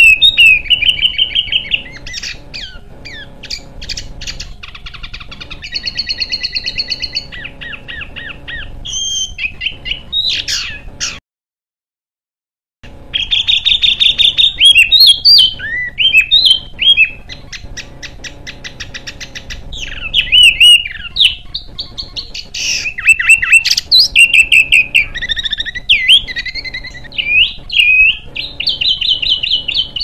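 Small songbirds singing fast, harsh chattering trills, chips and whistles, one phrase crowding on the next: an edited masteran recording of rough songbird song used to tutor cage birds. The song drops out to dead silence for about a second and a half about eleven seconds in, then carries on.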